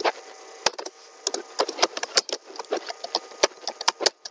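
Typing on a computer keyboard: a quick, uneven run of key clicks, several a second, with a short pause near the end.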